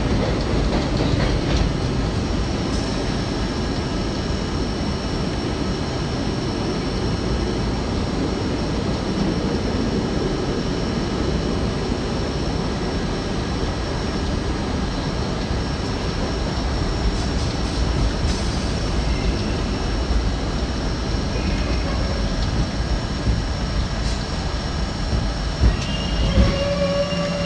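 New York City subway train heard from inside the front car, a steady rumble of steel wheels on rail as it runs along a station platform. Near the end comes a short high squeal.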